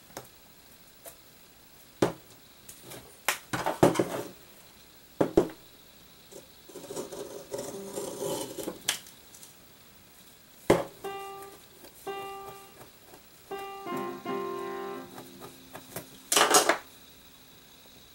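Sharp knocks and clatters of a plexiglass panel and tools handled on a workbench, with a stretch of rustling plastic film near the middle. A few short piano-like notes sound later on.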